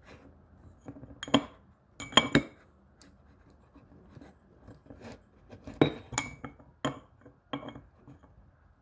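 Metal cup-style oil filter housing wrenches clinking and knocking as they are handled and set onto the filter housing: several sharp, separate clinks.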